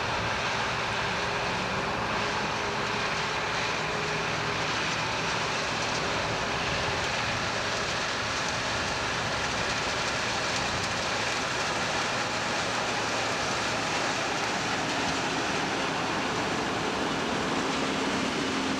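John Deere combine harvesting soybeans close by: its engine and threshing machinery make a steady, loud, even mechanical noise that does not let up, with a faint steady hum coming in near the end.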